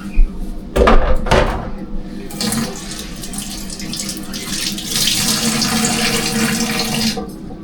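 Water running from a tap into a sink for about five seconds, then shut off. It follows a few knocks and clatters in the first second and a half.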